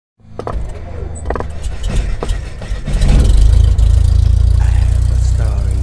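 Cinematic logo-intro sound effects: a few sharp hits in the first couple of seconds, then a deep low rumble that swells up about three seconds in and holds.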